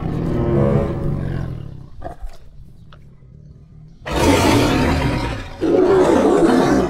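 Tyrannosaurus rex roar sound effect: a low growl fades over the first two seconds, then after a quieter pause a loud roar breaks out about four seconds in and swells again near the end.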